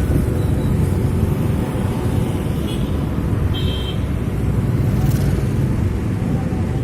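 Bus engine running with a steady low rumble, with a short high chirp about three and a half seconds in.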